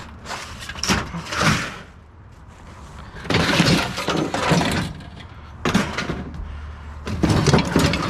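Loose scrap metal clattering and crashing in four bursts as pieces are pulled out and tossed, the loudest burst a little past the middle.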